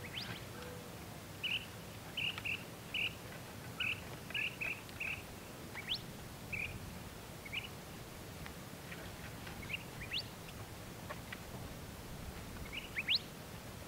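Birds chirping: short chirps repeated irregularly, with a few quick rising whistles, over steady low background noise.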